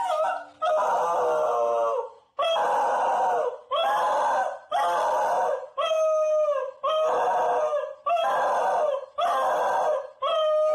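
Cocker spaniel howling in a run of about nine long, scream-like cries, each roughly a second long with short breaks between them, some falling off in pitch at the end. This is the dog's separation-anxiety howling when left alone.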